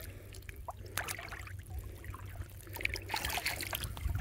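Water splashing and dripping as hands work a gill net in waist-to-chest-deep water, freeing fish from the mesh. Scattered small splashes and drips, busiest about three seconds in.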